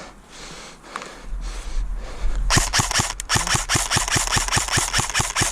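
Airsoft electric rifle (ASG M15 AEG) firing on full auto: a rapid, even run of sharp shots that starts about halfway in, with one brief break, after a quiet start.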